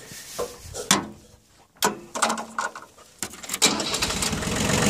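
A few clicks and knocks, then the Yanmar YM2002's three-cylinder diesel engine starts about three and a half seconds in and runs steadily, growing louder toward the end.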